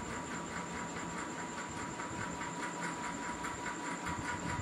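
Steady background noise: an even hiss with a faint high-pitched hum and a fast, even, faint ticking.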